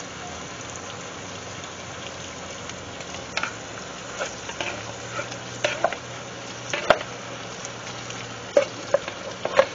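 Wooden spoon stirring baked beans into ground beef in a stainless steel skillet: a steady low sizzle from the hot pan, with scattered short wet scrapes and clicks of the spoon against the pan from about three seconds in.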